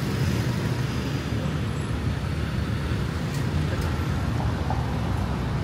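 Road traffic on a busy city street: a steady low rumble of passing motor vehicles.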